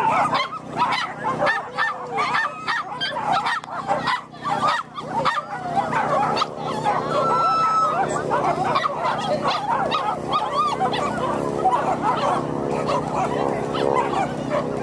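Excited dogs yipping and barking in quick, overlapping high cries, over a steady hum.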